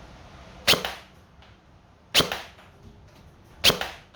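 Upgraded, short-stroked G&G Predator airsoft electric gun firing three single shots about a second and a half apart, each a sharp crack with a brief tail.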